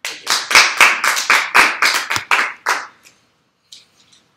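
Hand clapping: about a dozen sharp claps at roughly four a second, stopping about three seconds in, followed by a few faint knocks.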